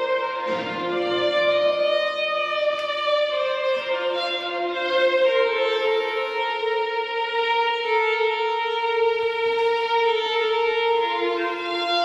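Solo fiddle played slowly, with long held notes that change pitch every few seconds and ring on into one another in the echo of an underground tunnel shaft.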